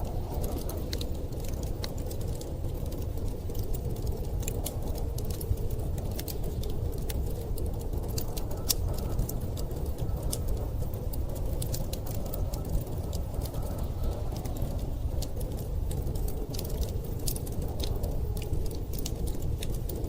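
Wood fire crackling with scattered sharp pops over a steady low rumble of storm wind.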